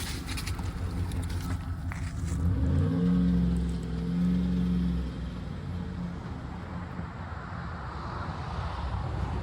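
GMC van engine running, then revving up sharply about three seconds in, holding high for about two seconds and dropping back: the revs flaring as the slipping transmission fails to hold its gear.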